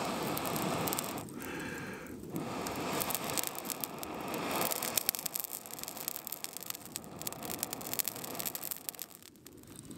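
Air blown through a metal blow poker onto the glowing embers of a smouldering log: a steady rushing hiss in long breaths that pause about a second in and again near the end, over crackling and popping embers as sparks fly.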